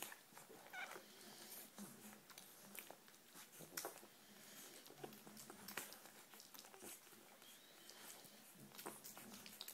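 Faint sounds of an American Bulldog puppy suckling at its mother's teat: soft, irregular clicking and smacking sucks, with a few low short grunts.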